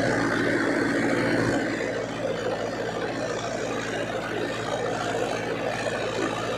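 Farmtrac 6055 four-cylinder tractor engine running steadily while it pulls a super seeder through straw stubble. The engine drone sits under a dense mechanical clatter, and the level drops slightly about a second and a half in. The tractor is carrying the seeder without strain.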